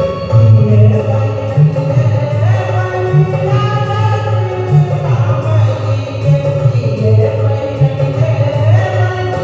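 Hindu devotional bhajan to Hanuman: singing over a steady low rhythmic accompaniment.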